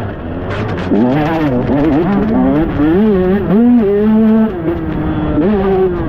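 125cc two-stroke motocross bike engine revving up and down as the throttle is worked, held high for about a second past the middle, then dropping off and picking up again near the end.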